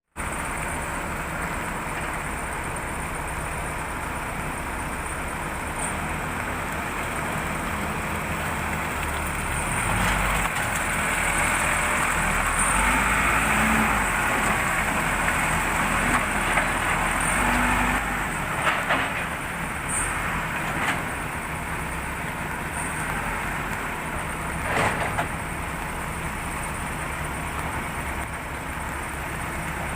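Case 580 Super L backhoe's diesel engine running steadily, working up louder for several seconds about a third of the way in, then settling back, with a few sharp knocks.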